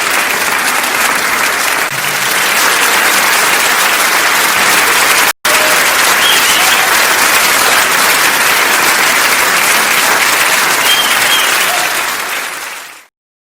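A large crowd applauding with dense, continuous hand clapping. It drops out for a split second about five seconds in, then fades away to silence shortly before the end.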